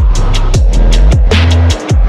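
Phonk track playing: a hard electronic beat of deep bass kicks that drop in pitch, under fast, evenly spaced high percussion. The bass briefly drops out near the end.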